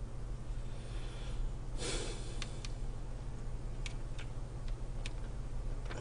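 Quiet eating sounds: a breath through the nose about two seconds in and a few light clicks of chopsticks against the stew bowl, over a steady low hum.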